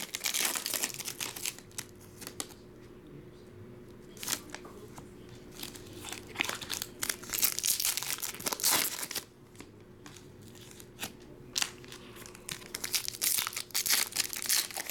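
Foil trading-card pack wrapper being torn open and crinkled by hand, in three spells of crackling with quieter pauses between them.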